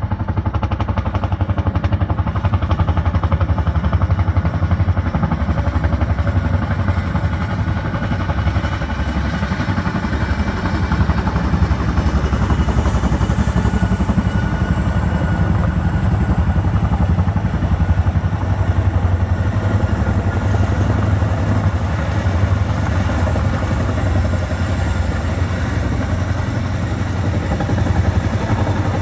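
CH-47 Chinook tandem-rotor helicopter coming in to land close by: a loud, steady, rapid beat of its rotor blades.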